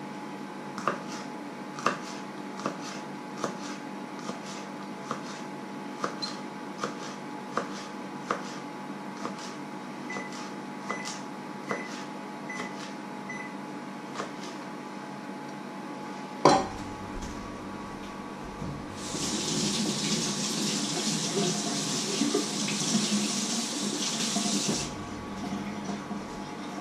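Knife slicing spring onions on a wooden cutting board: a slow, steady chop a little more than once a second. About sixteen seconds in comes one sharp knock, and soon after, water runs from a tap for about six seconds, then stops.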